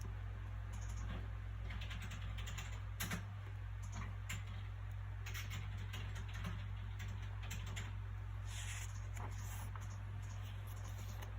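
Soft paper sounds from a book being handled, small rustles and light clicks now and then, with a longer rustle near the end, over a steady low hum of background noise.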